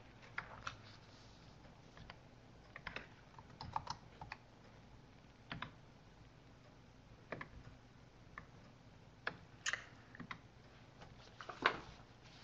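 Faint, scattered computer keyboard keystrokes and clicks, a few at a time with pauses between, as a web form is filled in.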